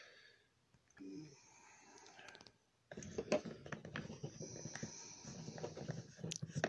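Fingers rummaging in a small cardboard box: rustling and scraping with many small clicks and taps, starting about three seconds in.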